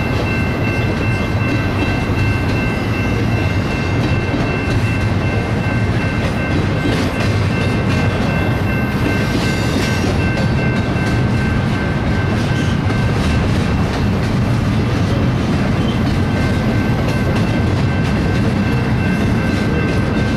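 BNSF double-stack intermodal container train rolling past at steady speed: a continuous loud rumble of steel wheels on rail with rapid clicking, and a thin steady high whine over it.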